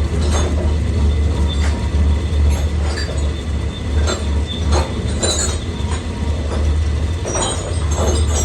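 Machine-shop machinery running with a steady low hum, over which come irregular short metallic scrapes and squeaks of metal working against metal.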